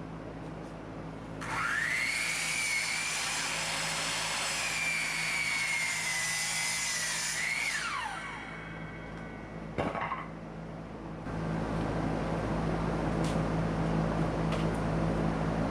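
Circular saw cutting through a wooden joist: the motor whines up to speed, its pitch sags slightly as the blade works through the board, then rises for a moment and falls away as the saw winds down. A sharp knock follows about ten seconds in, and then a steady low motor hum.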